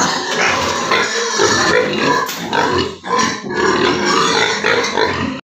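Weaned piglets grunting and squealing loudly as they crowd the feed trough at feeding time.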